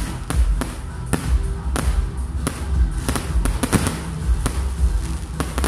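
Aerial fireworks bursting: a rapid, irregular series of sharp bangs and crackles, thickest about three to four seconds in.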